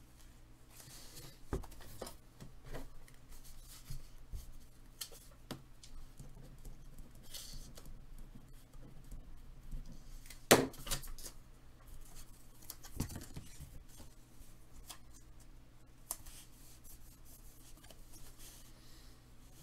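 Hands handling a trading card in a plastic top loader and a paper envelope: soft rustling and scattered light clicks. One sharp click about halfway through is the loudest sound, with another a few seconds later, over a faint steady low hum.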